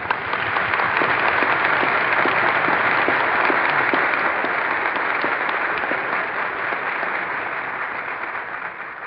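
A large dinner audience applauding. It starts suddenly, is fullest in the first few seconds and slowly dies away. It is heard through an old radio broadcast recording with no high end.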